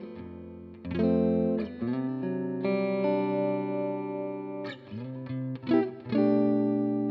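Electric guitar played through a Tone King Gremlin 5-watt tube amp: picked chords and single notes, each held for a second or so, with a few notes bent upward.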